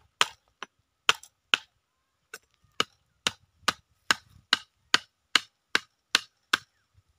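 Hatchet striking a bamboo stake in repeated sharp knocks: a few spaced blows, then a steady run of about two and a half per second from about two seconds in.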